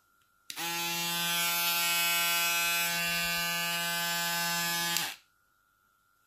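Stylecraft Rebel electric foil shaver switched on, its motor running with a steady even hum for about four and a half seconds, then switched off.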